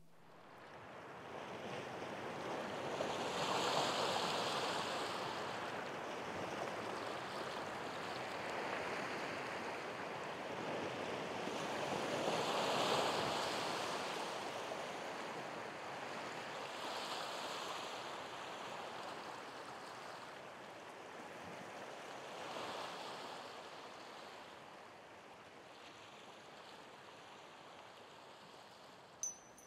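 Sea waves washing in on a shore, each swell of rushing water rising and falling away every several seconds, growing fainter towards the end.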